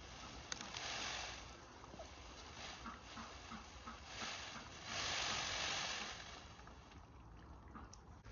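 Indian blue (black-shouldered) peacock shaking its fanned tail feathers in display, a dry rustling hiss in bursts: a short one about a second in and a longer, louder one from about four to six seconds.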